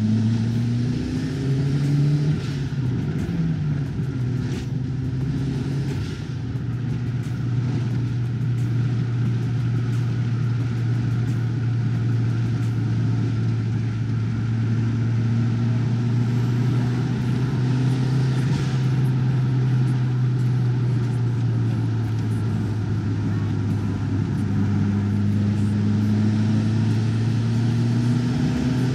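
Toyota AE86 Sprinter Trueno's turbocharged 4A-GE four-cylinder engine heard from inside the cabin while driving, a steady drone over tyre and road noise. The revs shift briefly about two seconds in and climb slowly near the end.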